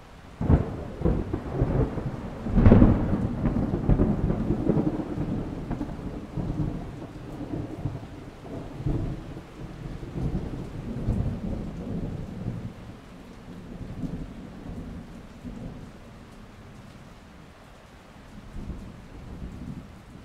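Thunder over steady rain: a sharp crack about half a second in, a louder peal near three seconds, then a low rumble that slowly dies away.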